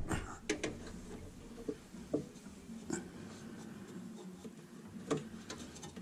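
A few light clicks and scrapes, spaced a second or so apart, from a socket on a stubby extension being worked blind onto a 10 mm thermostat-housing bolt.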